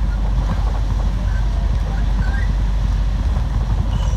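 Steady low rumble of a moving vehicle's engine and tyres on a wet road, heard from inside the vehicle.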